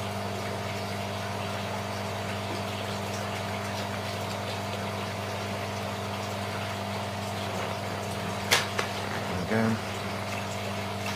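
Steady mechanical hum made of several constant tones, like a small motor running, with a single sharp click about three-quarters of the way through.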